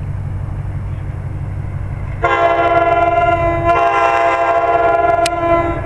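An approaching NJ Transit ALP-46A electric locomotive sounds its air horn in a long, loud blast of several tones together. The blast starts about two seconds in, dips briefly partway through and cuts off near the end, over a steady low rumble.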